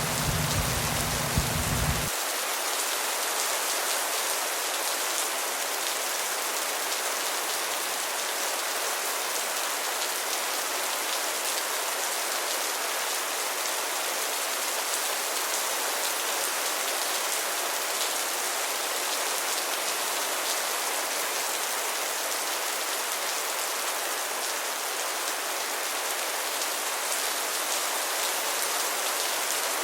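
Steady rain falling: a dense, even hiss of drops. A low rumble underneath cuts off suddenly about two seconds in.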